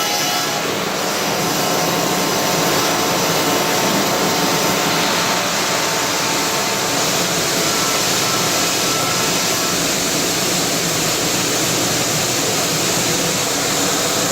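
CNC stone router milling granite, a steady, loud grinding noise from the spindle and tool cutting the stone that holds even throughout.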